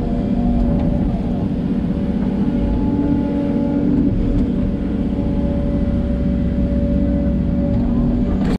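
Hidromek 140LC excavator's diesel engine running steadily under working load, with slight shifts in pitch as the hydraulics work; the sound cuts off abruptly near the end.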